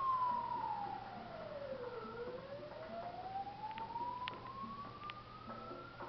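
Ambulance siren in a slow wail, its pitch falling for about two seconds and then rising slowly for the rest, heard through a television's speaker.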